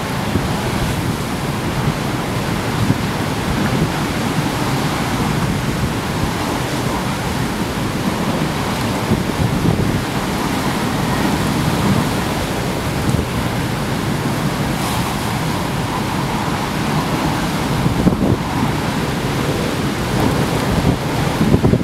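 Heavy storm surf breaking over a harbour pier, with strong wind buffeting the microphone: a dense, continuous wash of water and wind with a few brief louder surges as waves hit.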